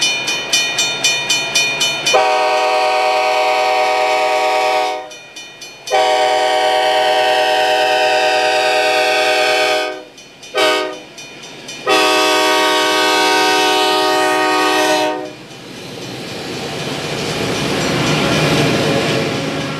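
EMD SD50 freight locomotive sounding its multi-chime air horn in the long, long, short, long grade-crossing pattern, after a fast ringing of about four strokes a second. Near the end the horn gives way to the rising rumble of the locomotives and train rolling past.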